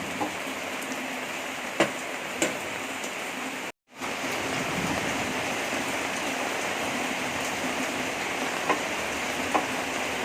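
Heavy rain falling steadily, with a few sharp clicks over it. The sound cuts out for a moment near four seconds in.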